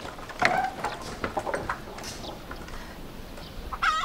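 Chickens clucking, with a louder squawk about half a second in and another short call near the end.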